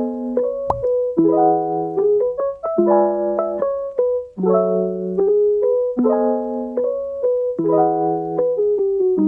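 Background music: a piano or electric piano playing a repeating pattern of chords that change about every second and a half, with one brief click under a second in.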